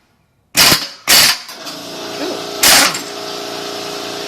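Craftsman 1/2-inch air impact wrench fired in reverse in three short bursts, trying to break a tightened motorcycle bolt loose. About a second and a half in, the air compressor starts running steadily to rebuild tank pressure.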